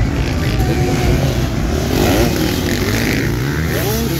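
Several motocross bikes racing on the track, their engines overlapping and revving, rising and falling in pitch as they accelerate and ease off.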